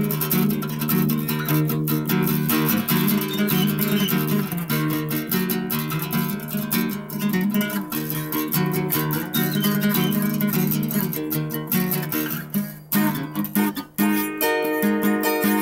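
Background music led by strummed guitar, starting abruptly, with a couple of brief breaks near the end.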